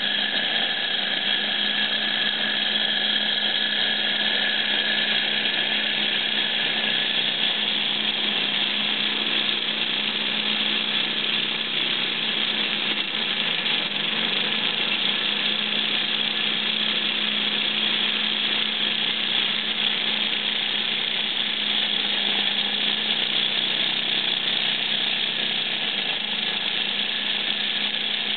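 Small kit Stirling engine running fast, a steady whir from its flywheel, belt and small generator motor, with the hiss of a gas torch flame playing on its hot cylinder.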